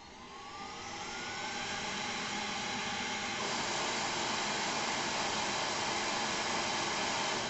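Suction fan of a Xiaomi Mi Robot Vacuum 2 (Roborock S50) spinning up as cleaning starts: a whine rising in pitch over the first two seconds, settling into a steady whir that steps up louder about three and a half seconds in.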